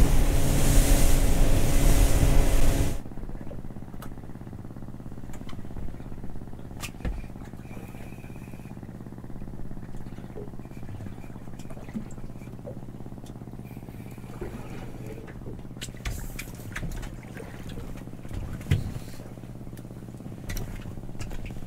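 Boat engine running under way, loud with rushing wind and water, for about the first three seconds, then cutting abruptly to a low, steady engine hum with scattered light clicks and taps.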